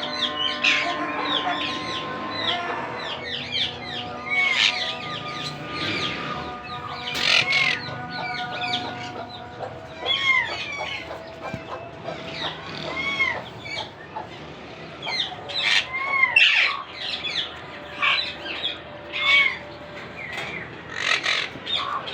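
Monk parakeets calling: a steady run of short, harsh, arching chirps and squawks, one after another every second or so.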